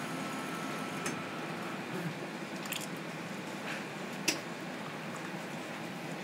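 Self-service coffee machine pouring coffee in a thin stream into a ceramic mug, over a steady machine noise, with a few sharp clicks, the loudest about four seconds in.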